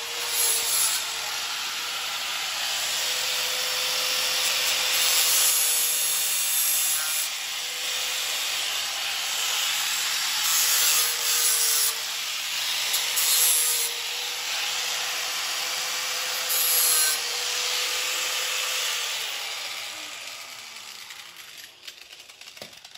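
Electric grinder abrading the metal of a suspension part, prep work cleaning it to bare metal so the TIG welder has a good solid ground. A steady motor whine runs under a harsh grinding hiss that surges louder several times as the tool bears down, then the motor winds down and the sound fades over the last few seconds.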